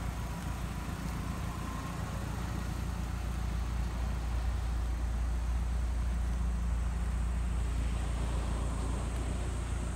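Nissan Silvia S13's engine idling steadily, a smooth low hum.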